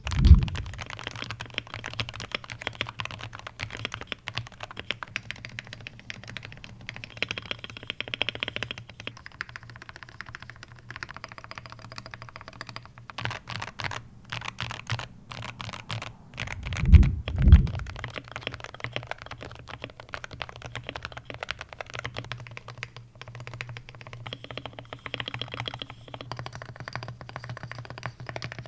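Typing on a Wooting 80HE mechanical keyboard in stock configuration, a steady run of key clicks with some faster bursts. The first part is the board in its zinc alloy case; after two dull thumps about 17 seconds in, the typing is on the board in its PCR ABS plastic case.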